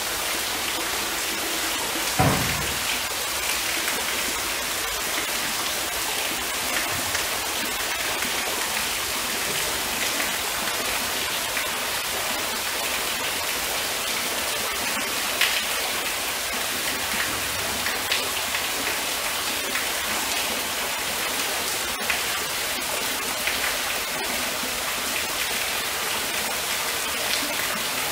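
Steady hiss and splash of falling water from a tall indoor waterfall, with a dull thump about two seconds in.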